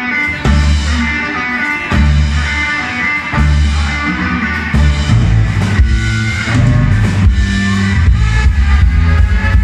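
Live rock band playing an instrumental passage with no vocals: electric guitar and bass over a drum kit, the bass and drums getting heavier about halfway through.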